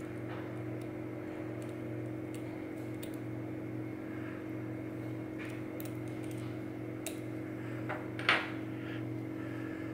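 Faint small metallic clicks and ticks from a lock cylinder plug being handled and probed with a thin steel pick, over a steady low hum. A short, louder scrape comes about eight seconds in.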